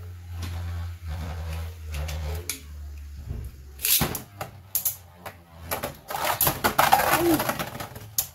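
Beyblade Burst spinning tops in a plastic stadium: Archer Hercules spins alone with a low hum, then about four seconds in Revive Phoenix is launched in with a sharp snap and the two tops clash in a run of sharp clacks and scraping.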